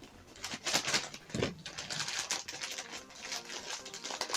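Handling noise from PC power-supply cables: scattered clicks, knocks and rustling as the cables are pulled about.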